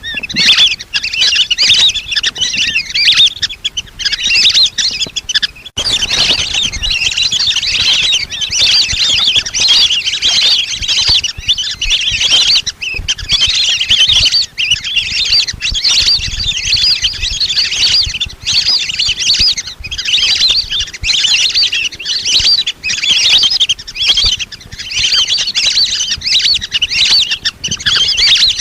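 A flock of lesser whistling ducks giving rapid, high whistled calls without pause, as used for a decoy call to lure the birds.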